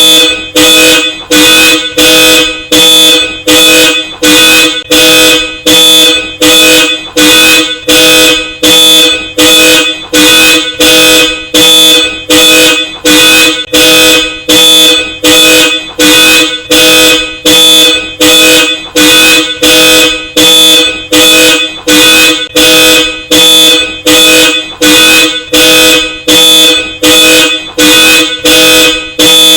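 Car alarm honking through Hella Supertone dual-tone car horns: two notes sounding together in loud, even on-off pulses, about three honks every two seconds.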